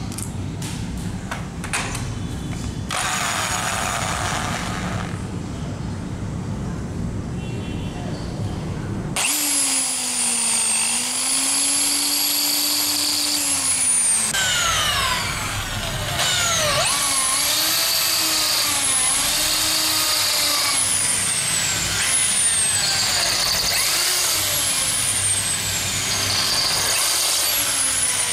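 Knocks and handling noise, then about nine seconds in an electric hand drill with a diamond core bit starts running. Its whine glides up and down as the speed changes, drops off twice and rises again.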